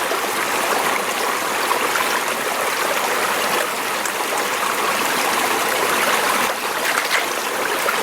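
Water of a tiny mountain stream running steadily, an even rush with no breaks.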